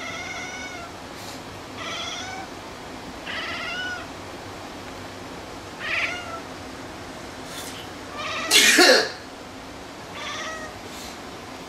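A domestic cat meowing in short calls, about five times, in response to a person's sneezes. A person's sneeze, the loudest sound, comes about eight and a half seconds in.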